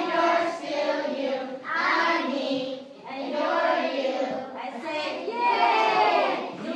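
A chorus of young children singing together, in short phrases with brief breaks between them.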